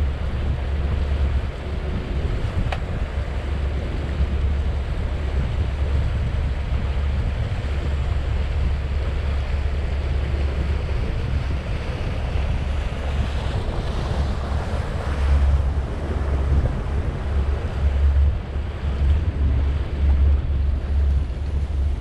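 Wind buffeting a bow-mounted GoPro's microphone over the steady rush of water along the hull of a moving cruiser, heavy in low rumble. The water rush swells for a few seconds partway through as another boat passes close by.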